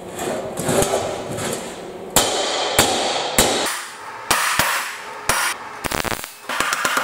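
Hammer striking steel: a run of separate ringing blows, then a quick burst of rapid strikes near the end.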